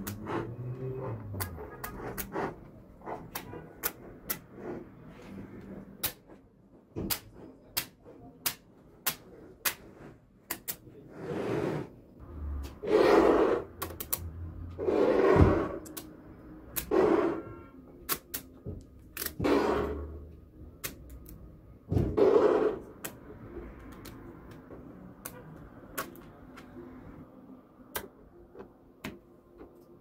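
Small magnetic balls clicking and snapping sharply as blocks of them are joined together. In the middle stretch there are about six louder scraping rattles, each half a second to a second long, as the ball blocks are slid against one another and across the tabletop.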